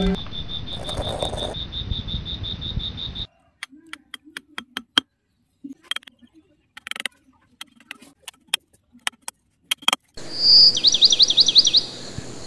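Scattered sharp taps and clicks of a thin nail being pushed into a hard, dry model ground surface to make small holes. Before them is a pulsing insect-like trill, and about ten seconds in comes a loud, quick run of rising-and-falling chirps.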